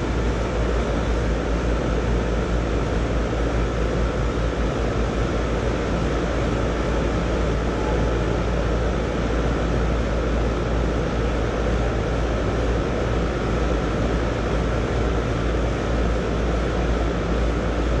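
Outdoor central air-conditioning condensing unit running steadily: the condenser fan and compressor giving an even hum and rush, with a faint steady whine.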